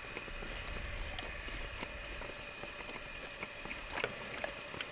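Low steady background hum with a few faint clicks and taps about four seconds in, as metal kitchen tongs take hold of a steak on a plastic cutting board.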